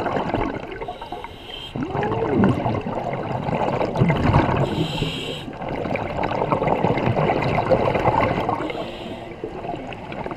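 Scuba diver breathing through a regulator, heard underwater: a short hiss on each inhalation, three times, with long bubbling exhalations between.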